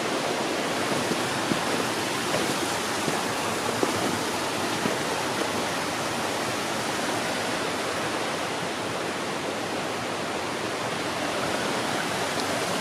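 Creek water rushing steadily over a small cascade into a pool, with a few light knocks in the first few seconds.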